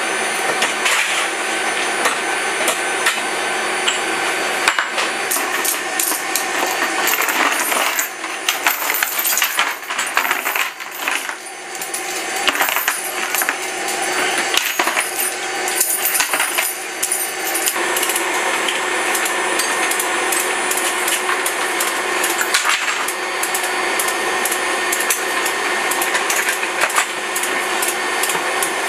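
Steel tie-down chains clinking and rattling as they are handled and hooked to floor fittings in an aircraft cargo hold: many sharp metal clinks, thickest in the middle stretch, over a steady mechanical hum.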